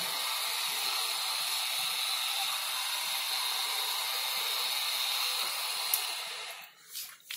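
Conveyor belt's drive motor running with a steady hiss, then cutting off about six and a half seconds in, as the proximity sensor stops the belt under the filling valve. A few light clicks follow.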